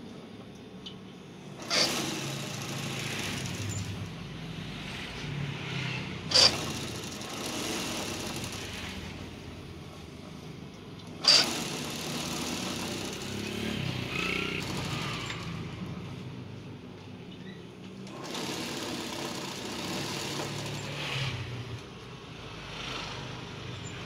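Industrial mattress tape-edge sewing machine stitching binding tape around a spring mattress's edge, its motor running in spells of a few seconds with short pauses between. Three sharp clacks stand out, about 2, 6 and 11 seconds in.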